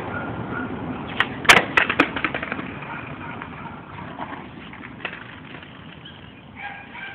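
Skateboard wheels rolling over rough concrete, with a quick run of sharp clacks about one and a half seconds in, one much louder than the rest; the rolling noise slowly fades.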